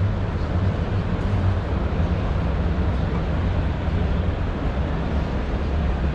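Steady background noise of a busy indoor exhibition hall, mostly a low, even rumble with no distinct events.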